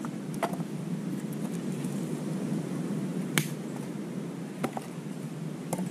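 A few sharp clacks of wood and stone being set down on a small stone fire hearth, the loudest about three and a half seconds in, over a steady low rushing background.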